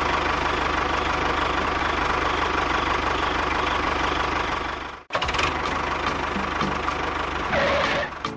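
Tractor engine running with a fast, even chug. It breaks off for an instant about five seconds in, runs on and stops near the end.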